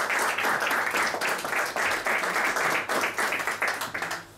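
Small audience clapping, dying away near the end.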